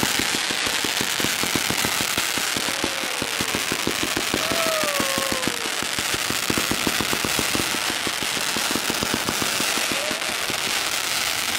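A ground-launched consumer firework going off: a steady hissing spray of sparks with fast, continuous crackling pops, several a second, throughout.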